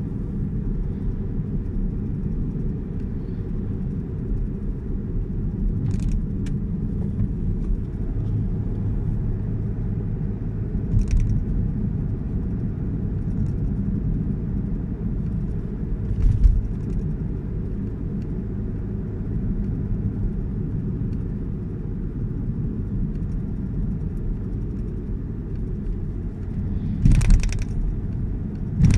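Steady low rumble of a car's engine and tyres heard inside the cabin while driving, with a few short knocks or rattles scattered through it.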